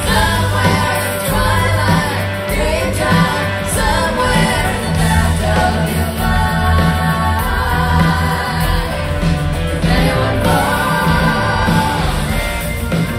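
Live rock band playing with a woman singing lead over it, with a steady bass line underneath.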